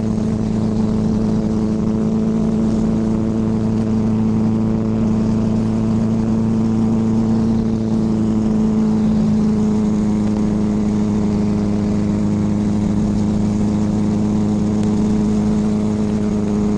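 Benelli 600i motorcycle's inline-four engine idling at a steady, unchanging pitch.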